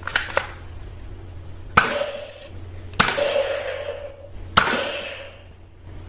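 Toy gun firing four shots about a second and a half apart. Each is a sharp crack followed by a short ringing tail. Two light clicks come right at the start, before the first shot.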